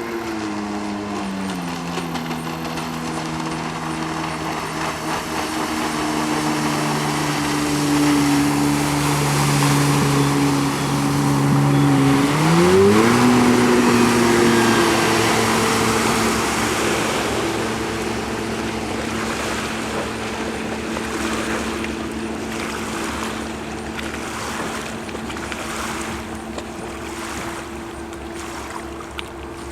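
Jet ski engine running, its note dropping in the first couple of seconds, then climbing sharply about halfway through and holding there. Water rushes and hisses along the hull, loudest in the middle.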